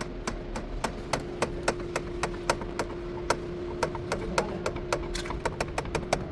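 Sharp, evenly spaced taps or knocks, about four a second, over a faint steady hum.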